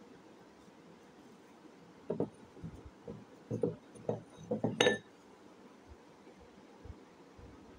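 Hard painted clay discs knocking and clinking against each other as they are handled. A quick run of clacks starts about two seconds in and lasts about three seconds; the last is the loudest and sharpest.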